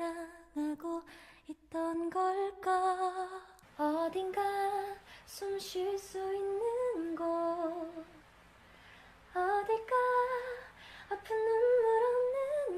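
A woman's voice singing an unaccompanied melody in long held notes, phrase after phrase, with a short pause a little past the middle.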